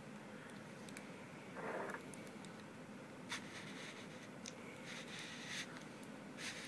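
Faint scraping and rubbing of hands working a black cardboard box holding a sharpening stone, with a few light clicks.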